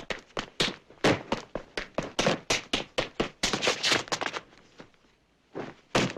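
Foley sound effects for an action scene: a fast, irregular run of thuds and taps, several a second, breaking off about three-quarters of the way through, then two more hits near the end.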